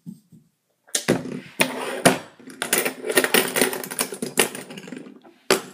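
Metal fidget spinners clattering against each other on a table in a rapid, irregular rattle of clicks over a faint hum. It starts about a second in and stops shortly before the end.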